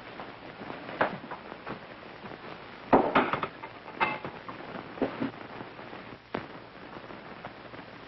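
Scattered clinks and knocks of dishes and cutlery at a table, the loudest cluster about three seconds in, over the steady hiss of an old film soundtrack.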